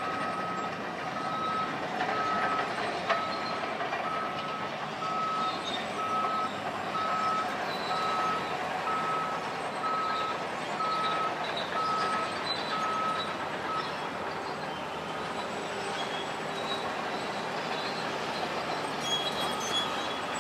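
Reversing alarm of a heavy vehicle beeping at an even pace, a little over once a second, stopping about two-thirds of the way through, over steady background noise.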